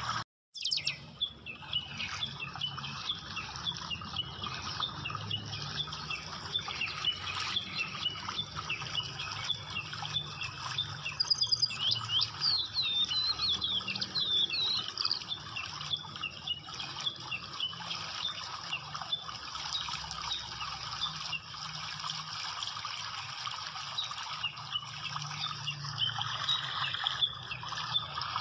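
A chorus of small birds chirping and singing over a steady background hiss. One bird's rapid rising whistles are loudest around the middle. The sound cuts out for a moment about half a second in.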